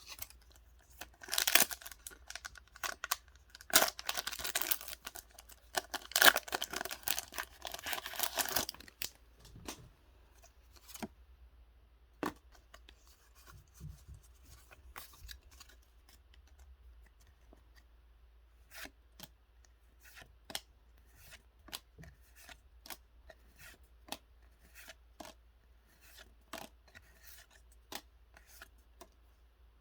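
Packaging being torn and rubbed open in a run of loud rasping rips for several seconds, then scattered light clicks and taps of cards and box being handled.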